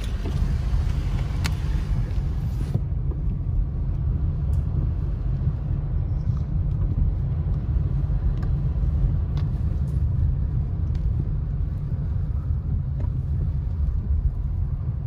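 Steady low rumble of a car driving slowly on a wet, slushy road, heard inside the cabin; a higher hiss drops away about three seconds in.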